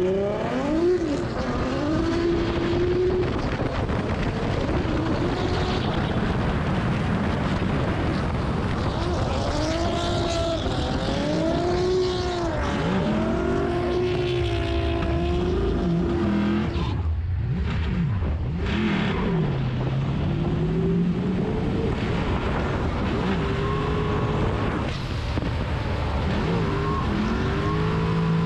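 LS V8-swapped BMW 135i drift car running hard through a drift, heard from inside the car, its engine revs rising and falling over and over, with a short drop about 17 seconds in.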